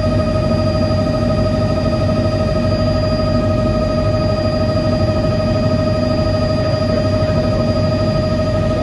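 Helicopter in steady flight heard from inside the cockpit: constant engine and rotor noise with a steady high whine over it.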